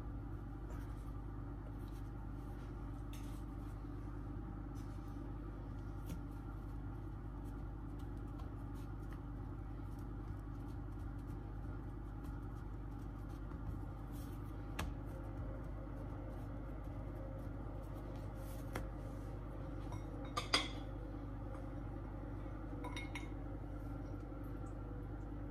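Faint taps and pats of floured hands pressing and sealing puff pastry dough on a stone countertop over a steady low hum. About twenty seconds in comes a sharp clink, with a smaller one a couple of seconds later: a metal spoon knocking against a glass bowl of curry.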